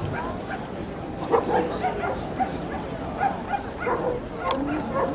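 Dogs barking repeatedly, short barks coming roughly every half second, over a steady background of crowd noise.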